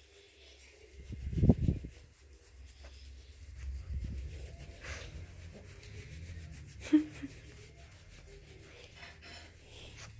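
Rubbing and scuffing noises, with a louder dull scuff about a second and a half in and a short sharp sound near the seven-second mark.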